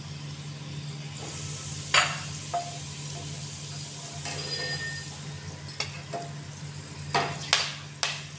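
Whole spices sizzling in hot mustard oil in a nonstick kadai, stirred with a slotted spatula that clicks against the pan several times.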